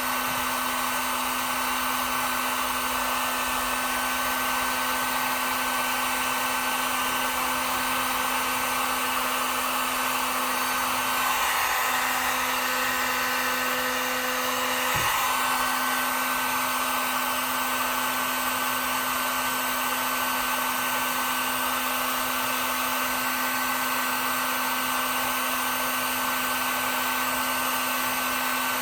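Heat gun running on its high setting: a steady blowing of fan and air with a constant motor hum and whine, while it melts a solder-seal wire connector. A faint click about halfway through.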